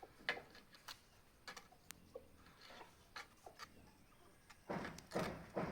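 Scattered light clicks and taps, then a run of louder, rougher knocks and scrapes starting near the end.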